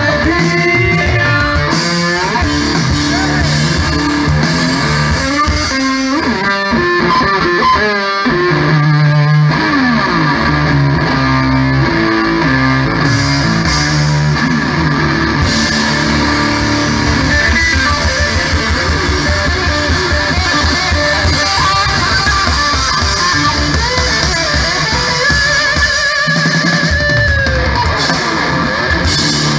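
Live blues-rock band playing loud, with electric guitar leading, recorded from the audience.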